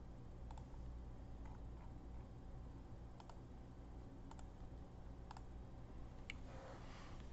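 Faint, scattered clicks at a computer, roughly one a second, over a low steady hum.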